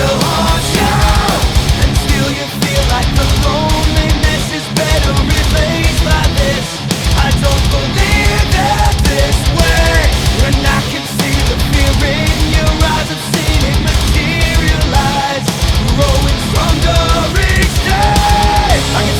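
Background music: loud, fast heavy rock with a driving drum beat and distorted guitars.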